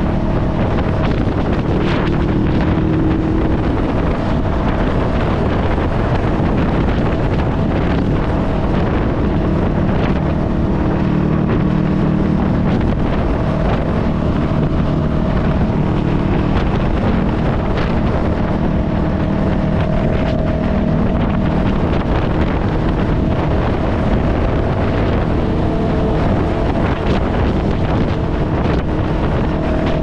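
Honda Rebel 500's parallel-twin engine running through a TBR Comp S aftermarket exhaust while riding, its note rising and falling a few times, with heavy wind noise on the microphone.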